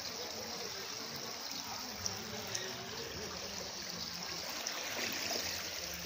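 Steady rush of flowing floodwater.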